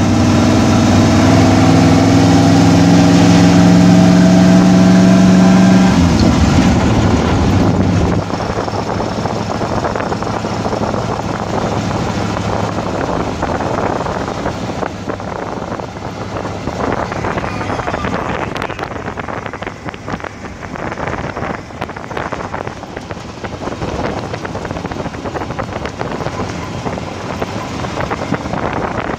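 A vehicle driving on a gravel road. For the first six seconds or so the engine is plainly heard, its pitch rising slightly as it pulls. After that a steady noisy rush of tyres on gravel and wind takes over, with fine crackling, and grows a little quieter after about eight seconds.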